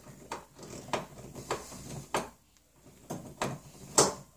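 Screw being turned by hand with a screwdriver, giving a sharp click or creak with each twist, several about half a second apart with a short pause midway and the loudest near the end. The screw is going in tight because its pilot hole is not deep enough.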